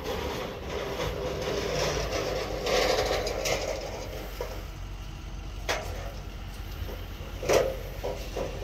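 Steady low rumble of vehicle engines. A few sharp knocks come in the second half.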